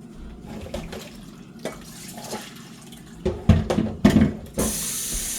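Kitchen dishes knocking and clattering, a few loud strikes about three seconds in, then a kitchen tap turned on, water running steadily into the sink.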